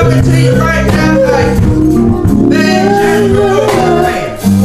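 Church music: a voice singing a wavering melody over sustained chords and a bass line, with light percussion.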